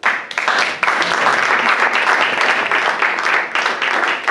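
Audience applauding: loud, dense hand clapping that breaks out suddenly and keeps up at a steady level.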